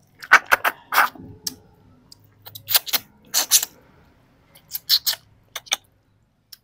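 Close-up eating sounds: biting and chewing a grilled tilapia head, with sharp crunches and mouth smacks coming in three short bunches.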